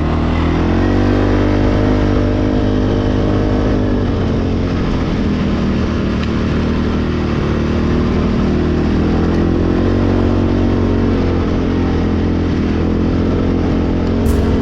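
ATV engine running while riding a trail. It revs up about a second in, eases off around four seconds in, then runs on at a varying steady pace.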